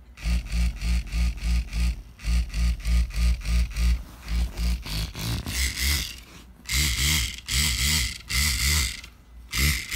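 Sonic Alert Sonic Bomb alarm clock going off: its bed shaker buzzes in rapid pulses, about four a second, with a thin high pulsing tone. In the second half the pulses turn louder and rougher.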